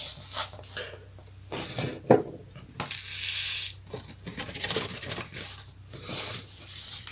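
Stiff paper rustling and scraping as crushed match-head powder is tipped off a folded sheet into a ceramic mortar, with a sharp knock about two seconds in and a longer sliding hiss a little after. A faint low steady hum runs underneath.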